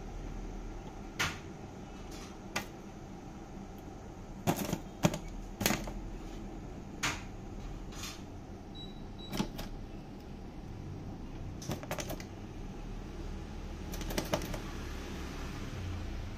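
Irregular sharp clicks and taps, some single and some in quick clusters of two or three, from inside an electric steam cooker: live crustaceans knocking their shells against the plastic tray and lid as the steam heats them. A steady low hum runs beneath.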